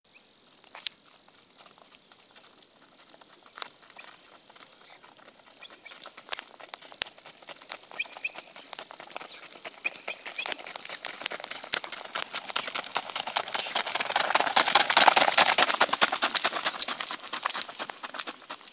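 Hooves of a Standardbred gelding beating on a gravel drive at a quick gait, a dense run of crunching strikes that grows louder as the horse comes near, loudest about fifteen seconds in, then eases slightly as it moves off.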